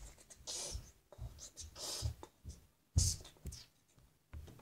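Loose Lego bricks being rummaged through and shifted about in a plastic bin: irregular scratchy rustling and clatter, with a sharper knock about three seconds in.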